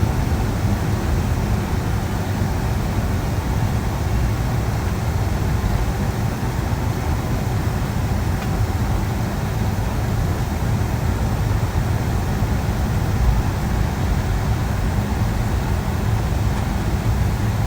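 Steady cabin drone of a Boeing 757-200 in flight: engine and airflow noise heard from inside the passenger cabin, even and unchanging, with a faint low hum.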